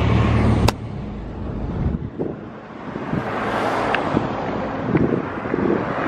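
Engine of a tour coach idling close by as a steady low drone, which cuts off abruptly with a click under a second in. After that come wind on the microphone and roadway traffic noise, with a few light knocks.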